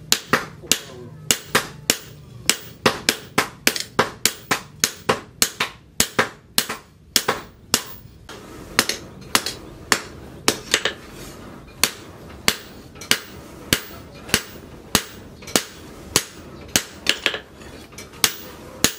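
Hand hammer striking red-hot leaf-spring steel on a steel post anvil: sharp ringing blows, about two to three a second, with a short pause about seven seconds in.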